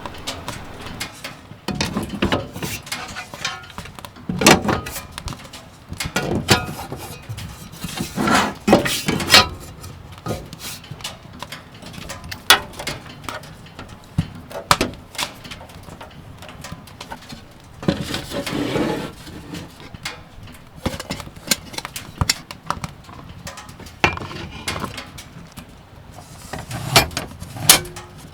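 Irregular clicks, knocks and rustling of camp gear or kitchenware being handled, with a few louder knocks.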